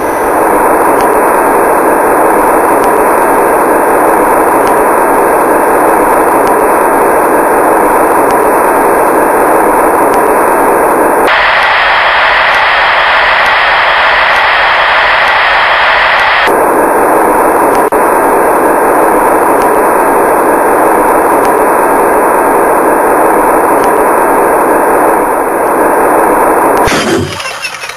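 Loud, steady static-like rushing noise. About 11 seconds in it jumps abruptly to a higher-pitched hiss, switches back about five seconds later, and cuts off shortly before the end.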